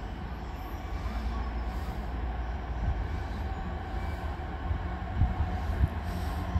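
Train running with a steady low rumble, with a couple of heavier low thumps near the end.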